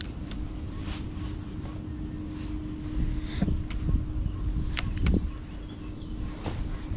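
Spinning rod and reel being cast and handled: three sharp clicks near the middle, two of them close together, over a steady low rumble and a faint hum.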